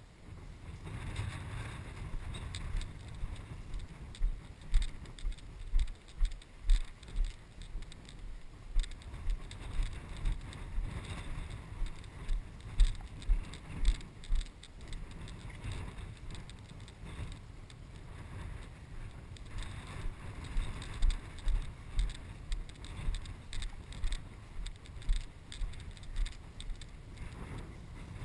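A person's footsteps walking through knee-high wet pasture grass, a steady rhythm of low thumps, with grass swishing against the legs. The steps ease off for a few seconds around the middle.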